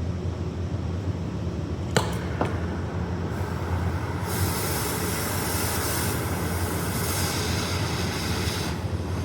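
Oxy-acetylene brazing torch: two sharp clicks about two seconds in, then a rushing hiss of gas and flame for about four seconds that cuts off shortly before the end, over a steady low hum.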